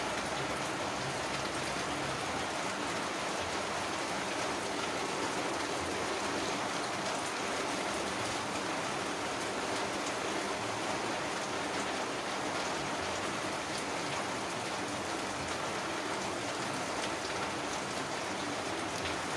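Steady rain falling, a constant even hiss that does not change.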